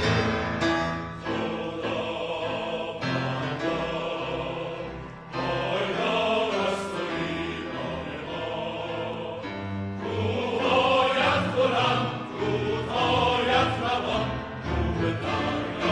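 Mixed choir singing a Persian anthem with a symphony orchestra, violins among the strings. The music dips briefly about five seconds in and swells fuller from about ten seconds in.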